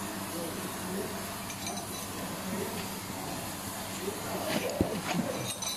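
A few light metallic clicks and clinks, bunched about four to five seconds in, as a hand works on the fittings of a truck gearbox's gear shifting module, over a steady background hiss.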